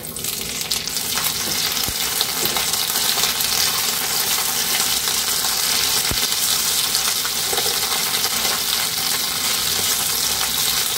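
Cut ivy gourd sizzling steadily in hot oil in a kadai, the sizzle starting as the pieces go in, with a spatula stirring them and a few light knocks against the pan.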